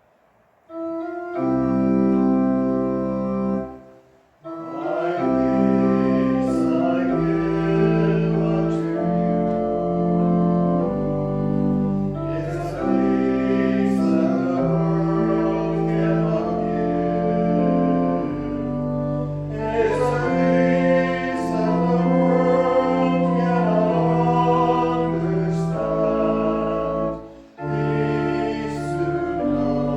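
Organ playing a hymn in held chords, with singing over it; it starts about a second in and pauses briefly twice between phrases.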